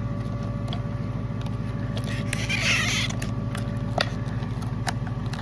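A vehicle engine idling steadily, with a brief rustle about two and a half seconds in and a couple of light clicks near the end.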